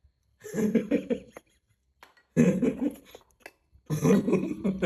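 A pet monkey vocalizing in three harsh, rough calls, each about a second long, with short gaps between them.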